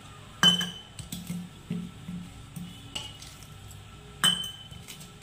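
Background music with a soft, steady beat, and twice a sharp clink of the stainless steel mixing bowl, about half a second in and near the end, as a hand mixes water into flour.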